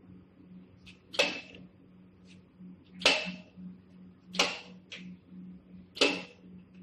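Steel scaffolding parts clanking as they are set by hand into the welding machine's jig: four sharp metallic clanks about a second and a half apart, with lighter taps between, over a steady low machine hum.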